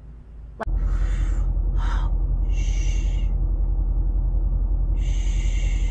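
A person shushing, four drawn-out "shhh" sounds, over a loud steady low rumble that starts suddenly about a second in.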